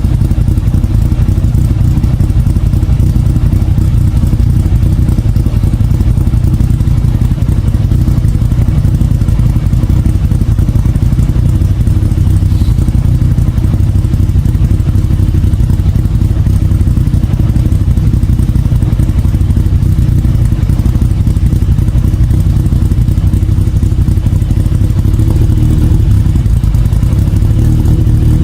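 Vehicle engine idling steadily on a cold morning start, just after it has fired up.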